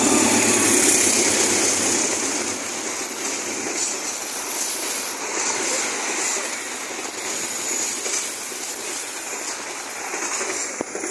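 A train passing close by at speed: a loud, steady rush of wheels on rails that is already at full strength as it begins and starts dropping away at the very end.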